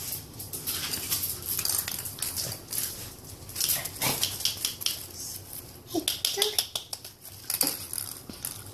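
Pomsky puppies scampering and playing on a hard laminate floor: many quick claw clicks and scrabbles, with a couple of brief yips about four and six seconds in.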